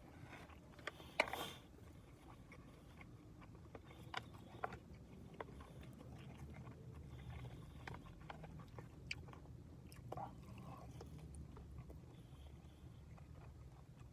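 A man eating a gyudon bento, with quiet chewing and scattered sharp clicks. The loudest click comes about a second in, over a steady low hum.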